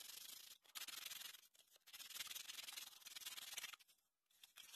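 Faint hand sanding: a sheet of sandpaper rubbed back and forth over a small 3D-printed part, in runs of strokes with brief pauses between them.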